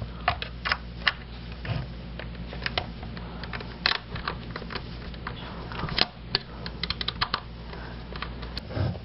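Phillips screwdriver turning out the two screws at the back of an Echo 1 E90 airsoft gun's polymer body: irregular small clicks and ticks of tool and plastic parts, over a low steady hum.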